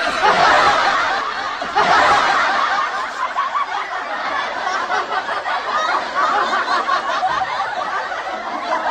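Continuous laughter.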